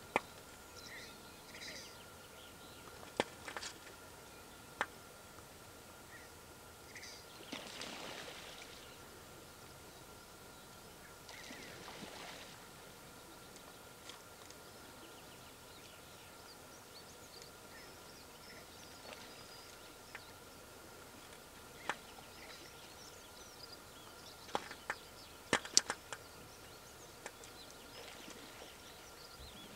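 Red-breasted mergansers courting on open water, heard faintly: scattered short, soft calls. A few sharp clicks are the loudest sounds, clustered near the end, over a steady faint high tone.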